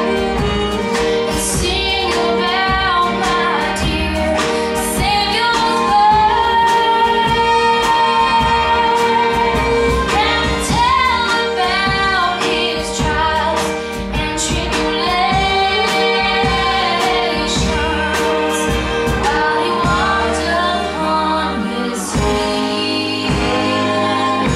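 A young girl singing a country gospel song live, with held, wavering notes, backed by a country band of fiddle, acoustic guitar, keyboard and drums.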